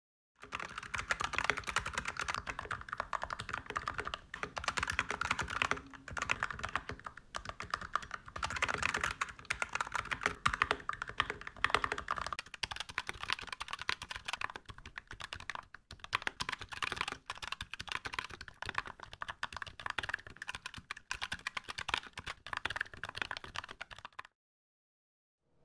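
Fast, continuous typing on a 65% mechanical keyboard with Light Wave V2 (Candy Jade Green) linear switches lubed with 106 oil, MT3 ABS keycaps and an aluminium plate. It is heard in turn through a studio recorder and a phone microphone, and stops about a second before the end.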